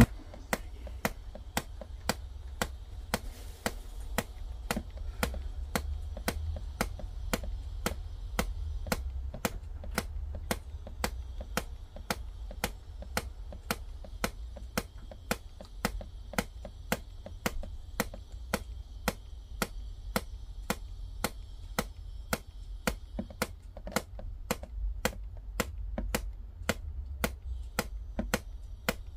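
Water dripping in a steady, even rhythm of about two drops a second, each drop a sharp tap.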